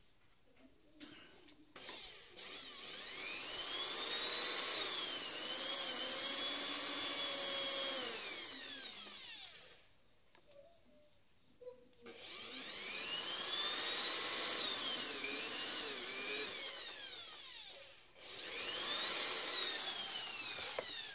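Electric hand drill boring a hole at a punch-marked centre point, in three runs with short pauses between, its high whine rising and falling in pitch as it spins up, loads and winds down.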